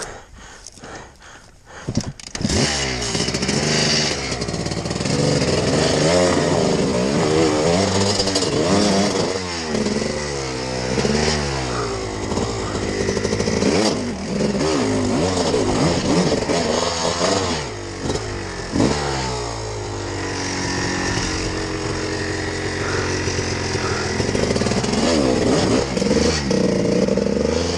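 Off-road motorbike engine starting about two seconds in, then revved up and down over and over as the bike is worked across loose rock, settling to a steadier run in the last third with another burst of revs near the end.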